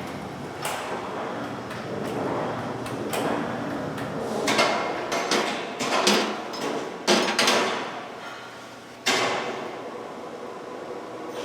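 Sheet metal clanking and knocking in a metal-fabrication shop, a dozen or so irregular strikes with ringing tails over a steady machine rumble. The loudest knocks fall in the middle of the stretch, with one more about nine seconds in.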